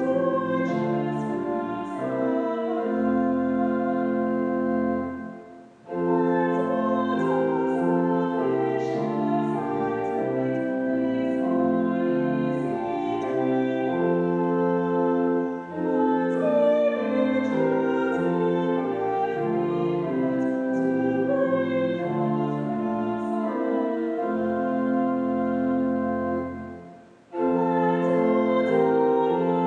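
A slow hymn sung with instrumental accompaniment, in long held notes. The music drops away briefly twice between verses, about six seconds in and near the end.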